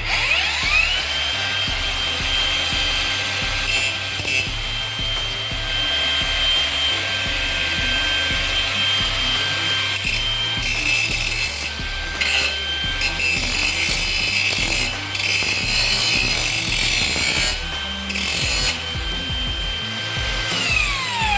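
INGCO 20V cordless brushless angle grinder with a grinding disc: it spins up to a steady high whine, grinds against a workpiece in several rasping passes, and spins down near the end.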